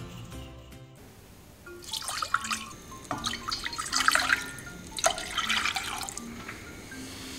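Water from a kitchen tap splashing in three uneven bursts, starting about two seconds in, over light background music.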